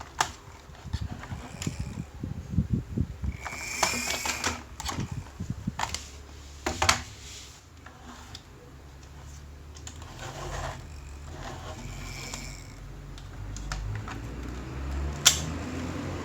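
Toy cars being handled: scattered clicks and plastic-and-metal clatters, with a steadier low rumble from about ten seconds in and one sharp click near the end.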